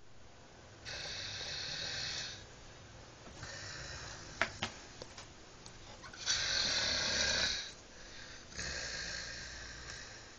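Snoring: four long, rasping breaths about two and a half seconds apart, the third the loudest, with a couple of short clicks about halfway through.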